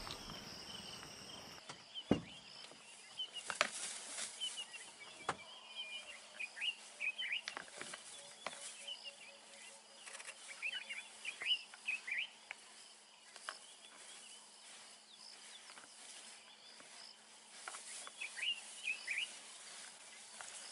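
Small birds chirping in quick clusters of short calls, coming and going, with a few sharp clicks in the first few seconds and a faint steady low hum underneath.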